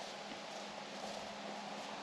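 Household wastewater treatment unit running under its plastic lid: a steady low hum with an even hiss.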